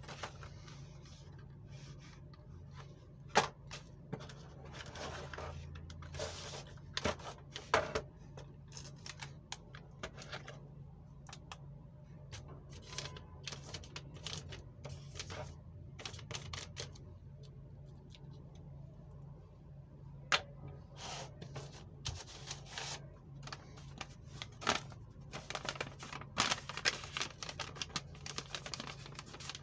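Irregular clicks and taps of art supplies being picked up and put down in a plastic art-set tray, with a drawing tool scratching on paper in between. A low steady hum runs underneath.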